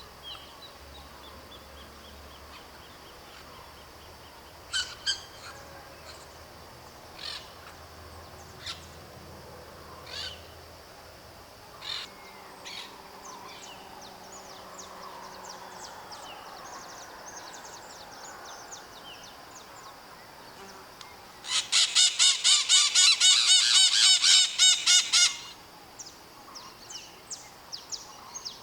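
White-eyed parakeets (maritacas) calling: scattered short harsh calls, then a loud run of rapid screeching calls, about four a second for roughly four seconds, past the middle, followed by a few faint chirps.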